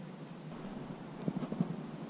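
Steady high insect chirring, like crickets, with a few soft low knocks in the second half.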